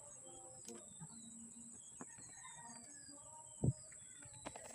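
Faint background birds chirping, many short high chirps scattered throughout. A single low thump about three and a half seconds in.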